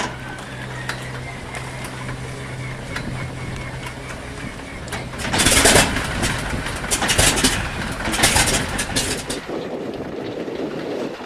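The starter whines steadily for about five seconds, turning over the radial engine of a de Havilland Canada Otter floatplane. The engine then catches and fires loudly and unevenly for a few seconds. Near the end this gives way to wind on the microphone.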